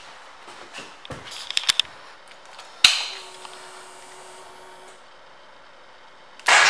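Light handling clicks, then a sharp click of the ignition switch about three seconds in, followed by a steady hum for about two seconds as the fuel pump primes. Near the end the 2015 Honda CRF250L's single-cylinder engine starts on the electric starter and runs loudly.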